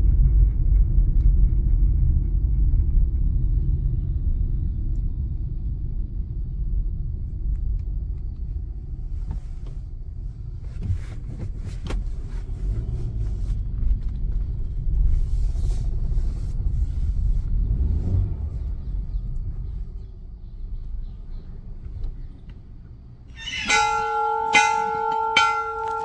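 Car cabin rumble of road and engine noise while driving, fading out. Near the end a temple bell starts ringing, struck several times in quick succession so its tone rings on.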